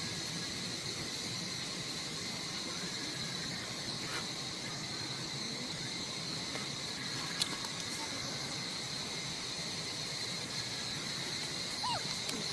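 Steady insect chorus, a continuous high buzz, with a single brief click about seven seconds in.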